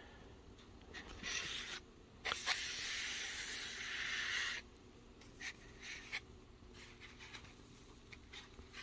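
Foam packing insert rubbing and scraping against the box as it is pulled out: a short scrape, then a longer one of about two seconds, followed by a few light handling clicks.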